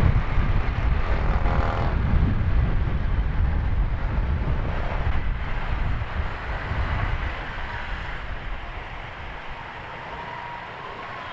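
Honda Click 150i scooter on the move: wind and road rumble on the camera's microphone mixed with engine noise, easing off and getting quieter about eight seconds in.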